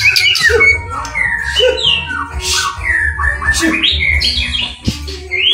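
White-rumped shama (murai batu) singing a rapid, varied run of whistles, chirps and sliding notes over a steady low hum.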